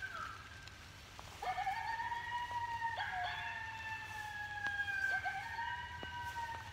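Coyote howl call used to draw in coyotes: one long howl that swoops up about a second and a half in, holds high and slowly slides down in pitch, after the fading tail of a previous howl at the start.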